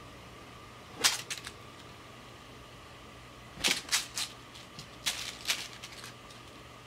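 A crumpled foil ball crackling as a cat bats it with its paw across the bottom of a box. The crackles come in three short bursts: about a second in, a cluster in the middle, and a longer one around five seconds in.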